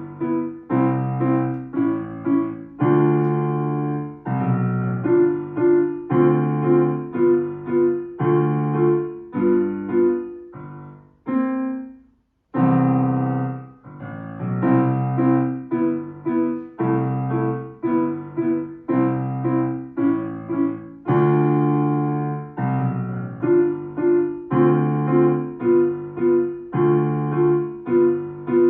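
Solo piano played in short, detached chords with a steady rhythm, with a brief pause about twelve seconds in.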